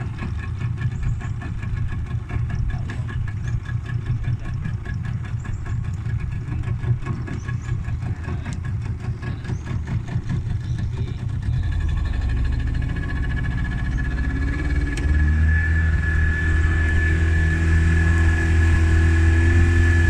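A 40-horsepower outboard motor on a small boat, running slowly at first, then throttled up about halfway through into a steady, louder drone with a high whine as the boat gets under way.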